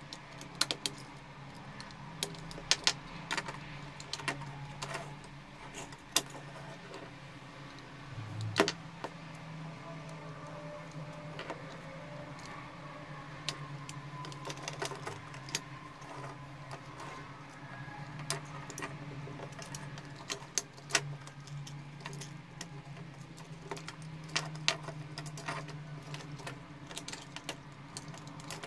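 Scattered small clicks and taps of metal tweezers and plastic parts as a Nikon speedlight flash is taken apart by hand, with one sharper knock about eight seconds in, over a steady low hum.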